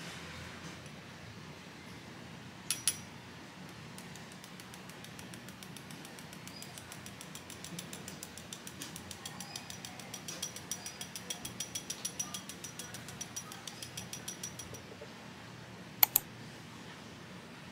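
Fine-mesh sieve tapped rapidly to sift cocoa powder, a fast, even ticking over most of the stretch with a faint high ring. A sharp double click comes about three seconds in, and a louder one near the end.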